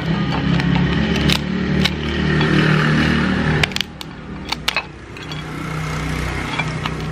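Engine noise from passing motorbikes on the street, swelling twice, with sharp clicks of kitchen scissors snipping through a steamed mud crab's shell.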